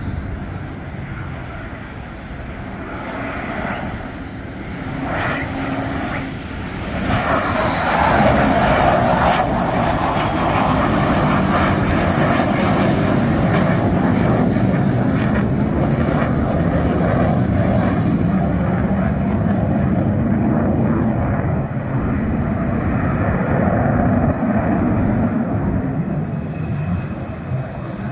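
Jet noise from a McDonnell Douglas F-15C Eagle's twin Pratt & Whitney F100 turbofans as it flies past. The roar grows about seven seconds in and stays loud as the jet passes and climbs away.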